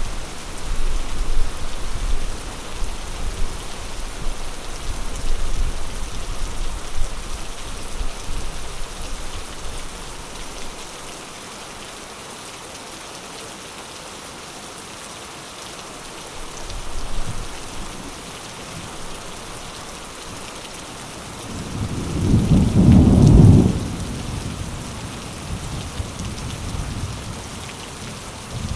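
Thunderstorm: steady rain falling throughout, with rolling thunder. A low rumble dies away about a third of the way in, a brief rumble comes midway, and the loudest peal comes about three-quarters through, then trails off over a few seconds.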